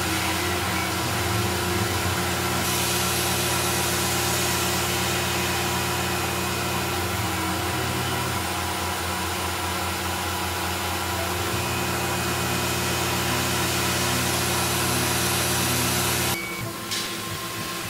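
Tormach PCNC mill's spindle running while a small end mill cuts aluminium: a steady machine hum with a dense hiss over it. The sound drops suddenly near the end.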